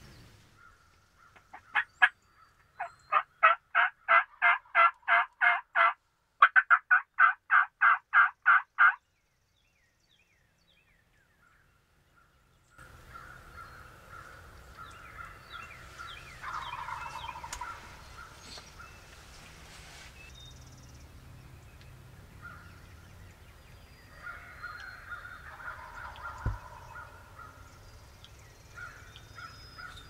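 Two runs of loud, evenly spaced turkey yelps, about three a second. After a few seconds of silence come two distant gobbles from wild turkey gobblers over small-bird chirps, and one short knock near the end.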